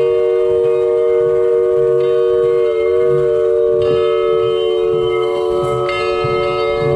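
A steam locomotive sounds a long, steady chord of several tones that holds throughout, with a slight waver in pitch about three seconds in.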